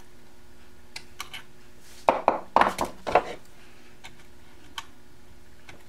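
Needle-nose pliers clicking against a capacitor lead and a metal solder terminal as the wire is bent back around it. There are a few light metallic clicks about a second in, then a louder cluster of clicks and scrapes between about two and three seconds in, over a faint steady hum.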